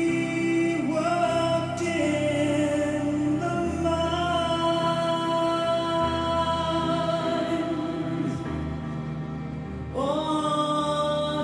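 Slow background music with long held notes; a new phrase begins about ten seconds in.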